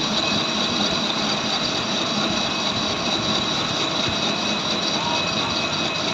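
Lathe running steadily, a constant machine noise with a high steady whine.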